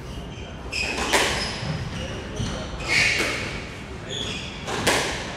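A squash ball being struck in a squash court, three sharp smacks about two seconds apart, with short squeaks of court shoes on the wooden floor between them.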